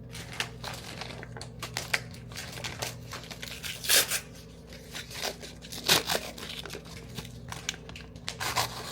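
Packaging of a Jamaican beef patty being torn open and crinkled by hand: irregular crackling and rustling, with the loudest rips about four and six seconds in.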